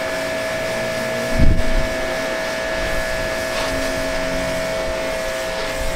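A steady motor drone with a constant whining tone, from a machine running near the shop that has been called extra noise, perhaps a neighbour cleaning his trailer. A single low thump comes about a second and a half in.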